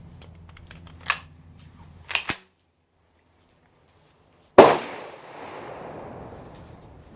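A few sharp clicks, then a single loud 9mm pistol shot about four and a half seconds in, ringing out as it fades. The round is a handload with a small rifle primer in place of a small pistol primer, and it fires normally.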